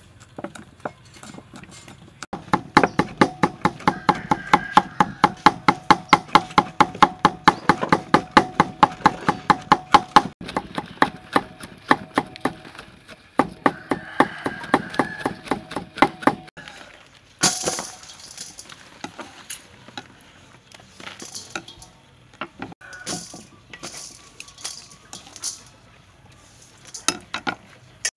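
Knives chopping red chilies on wooden chopping blocks: fast, even strikes of the blade on the wood, about four a second, for the first half, then fewer, scattered knocks and clicks.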